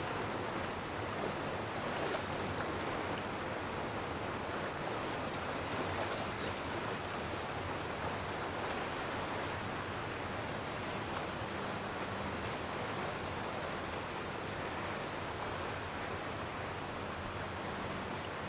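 Steady rush of small ocean waves washing through shallow water over sand, with a couple of brief faint crackles about two and six seconds in.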